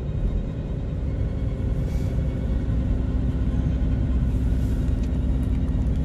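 A car driving, heard from inside the cabin: a steady low rumble of engine and tyres on the road, with a steady low hum coming in about two seconds in.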